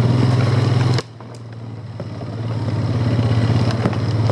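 ATV engine running steadily with a low, even note. About a second in, the sound drops off sharply, then builds back up over the next couple of seconds, with a few sharp knocks.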